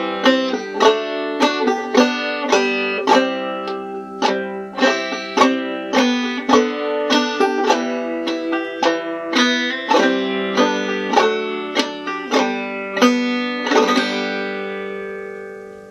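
Five-string banjo played clawhammer style in open G tuning (gDGBD), a steady run of plucked notes. Near the end a final chord is struck and left to ring out, fading away.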